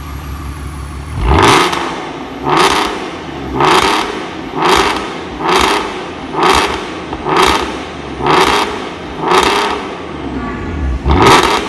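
Porsche 958 Cayenne's 3.6-litre V6 idling, then blipped sharply from about a second in, about ten times at roughly one rev a second, through an Fi Exhaust valvetronic cat-back system with its exhaust valves open.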